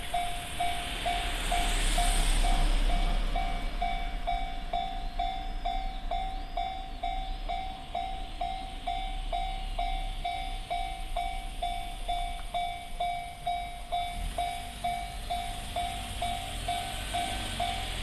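Japanese railway level-crossing alarm sounding the JR standard electronic bell tone, dinging steadily at about two strikes a second to warn of an approaching train. A broad rush of noise swells about two seconds in.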